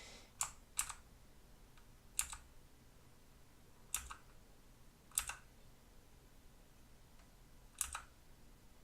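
Single keystrokes on a Motospeed CK108 mechanical keyboard with clicky Blue switches: about six separate sharp key clicks, one every second or two, irregularly spaced.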